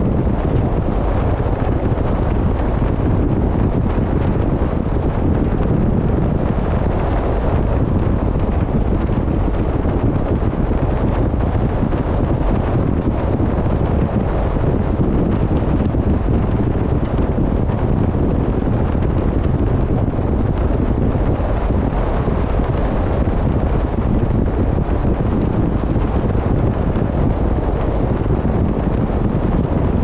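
Steady wind buffeting the microphone at sea, a continuous low rumble, with the sea washing beneath it.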